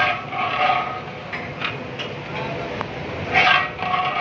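People's voices calling out at the start and again near the end, over a steady rushing background noise, with a couple of faint clicks in between.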